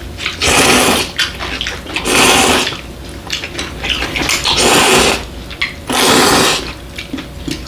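Close-up slurping of spicy cold bibim noodles, four long slurps in a row.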